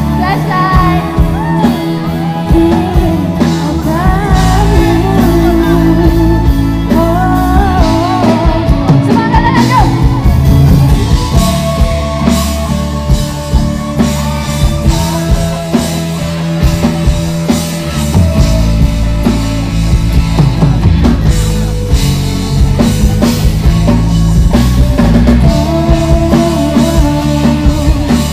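Rock band playing live through a stage PA: drums, bass and electric guitars, with a woman singing for roughly the first ten seconds before the guitars carry an instrumental passage.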